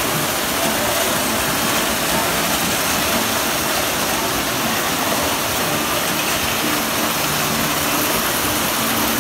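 Model trains running on the layout's track: a steady, even running noise with no sudden sounds.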